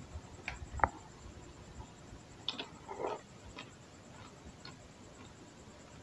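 Faint, scattered crunches of Pringles potato crisps being chewed: a sharper crunch just under a second in, a short cluster of crunches about three seconds in, then a few lighter ticks.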